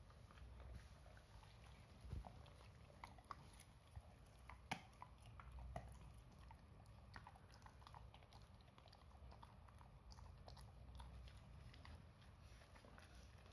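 A yellow Labrador retriever chewing small treats: faint, irregular crunching clicks, the sharpest few between about two and six seconds in.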